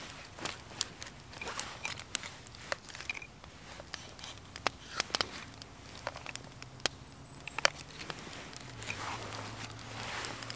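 Knife slicing cooked potatoes on a wooden cutting board: irregular sharp taps of the blade against the board, with a faint steady low hum underneath.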